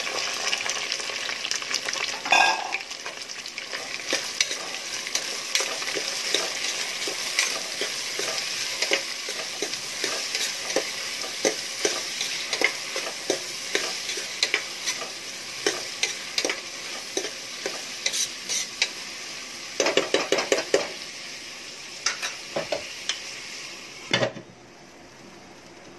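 Chopped onions and curry leaves sizzling in hot oil in a steel pot, stirred with a metal spoon that clicks and scrapes against the pot, with a quick run of spoon taps about twenty seconds in. Near the end a knock, and the sizzling drops to a much quieter hiss.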